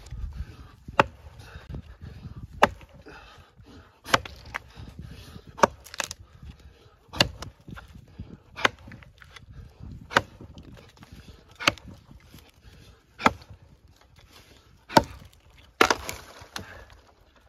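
Axe chopping into a felled tree trunk: sharp strikes about every second and a half, around a dozen in all, with a longer rough, scraping noise near the end.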